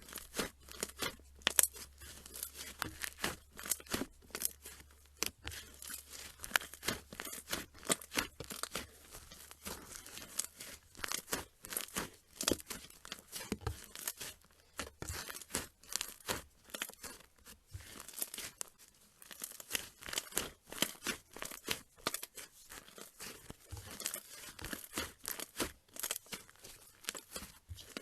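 Slime being squeezed and stretched by hand, with dense, irregular crackling and popping clicks, several a second.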